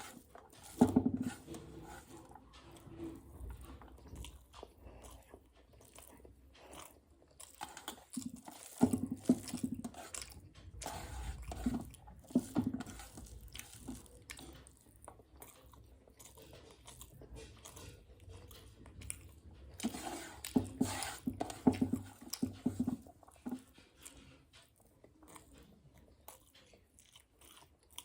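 A person chewing and biting food, with intermittent crunches and louder spells of chewing every few seconds.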